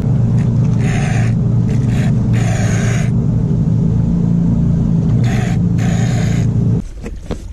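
Small engine of the pond-draining water pump running steadily, with a few short hissing rushes over it; the engine sound stops abruptly near the end.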